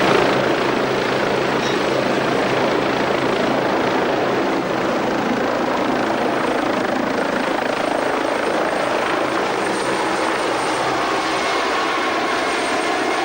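Helicopter engine and rotors running: a loud, steady noise that starts abruptly.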